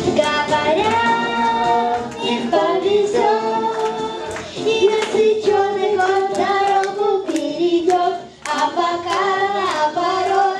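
A young girl singing a song into a headset microphone to acoustic guitar accompaniment, with a steady beat of sharp strokes under the melody.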